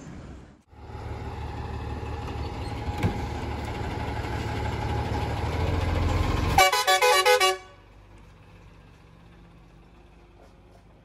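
A heavy truck's engine running and growing steadily louder, then its horn blowing a quick warbling run of several alternating notes for about a second, after which only a faint hum remains.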